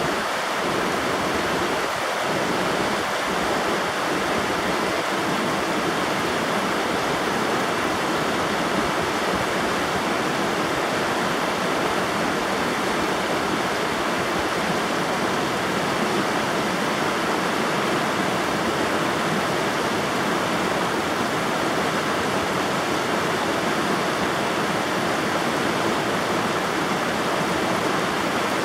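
River water rushing and splashing in a steady, even rush of noise.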